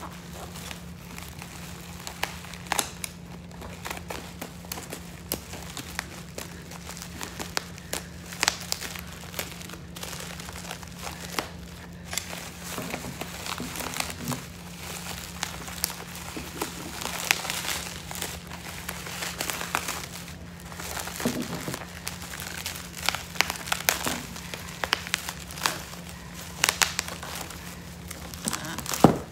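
Clear plastic wrapping crinkling and crackling as it is handled and pulled off a doll, with irregular sharp crackles throughout.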